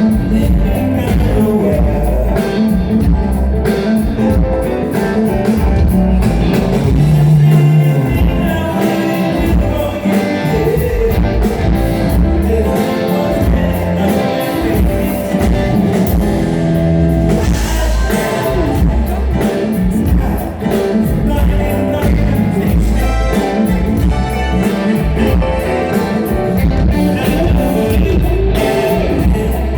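Rock band playing live through the PA, with a lead singer, electric guitar, bass and drums keeping a steady beat.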